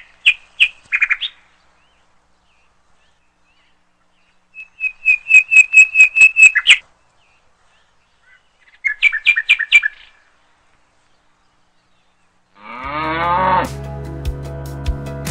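A bird chirping in three quick bouts of rapid repeated notes, then a cow mooing once near the end, its call rising in pitch, with music starting in right after it.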